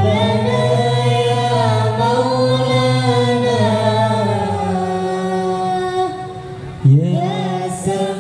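A group of voices sings an Islamic devotional song in unison without instruments, holding long notes through microphones. The phrase dies down about six seconds in and a new phrase starts about a second later.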